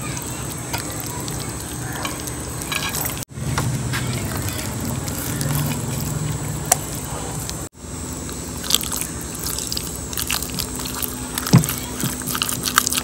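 Wet squishing and smacking of hands rubbing spice paste into a raw whole chicken, with scattered small clicks, over a steady low hum.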